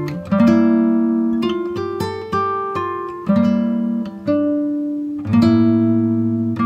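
Background music: an acoustic guitar picking chords, each struck about once a second and left to ring and fade.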